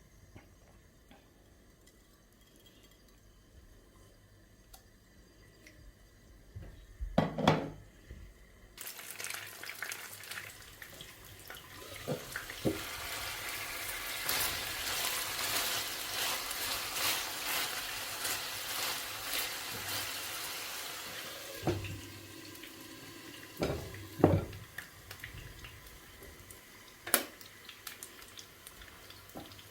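Kitchen tap running into a sink for about twelve seconds, with the clatter of pots and dishes. A sharp knock about seven seconds in is the loudest sound, and two more knocks come near the end.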